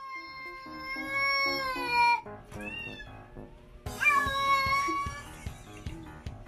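A cat yowling in long drawn-out meows: one about two seconds long, a short one, then another long one about four seconds in, over background music.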